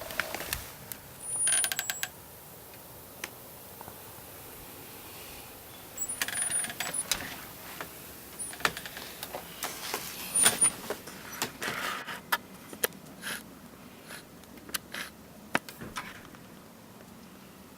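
Scattered sharp clicks and short rustles of handling noise, with a few brief high-pitched beeps.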